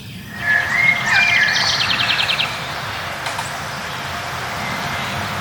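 Wild birds singing: clear whistled notes and a fast, high trill in the first two seconds or so, then quieter, over a faint steady tone.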